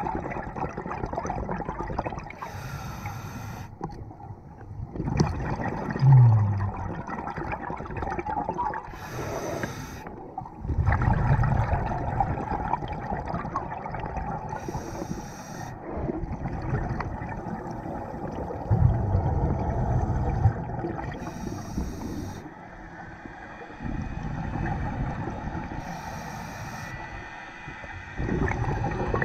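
Scuba diver breathing through a regulator underwater: a short hiss of inhalation about every six seconds, each followed by a longer rush of exhaled bubbles.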